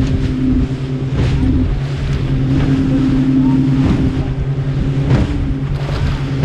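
Panga's outboard motor running steadily under way through rough chop. About every second and a half the hull slaps a wave with a splash, over wind and water noise.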